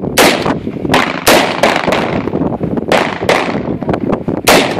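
AR-15 rifle firing a string of single shots, about seven sharp cracks at irregular intervals, some in quick pairs, each with a short echoing tail; fainter shots sound between them.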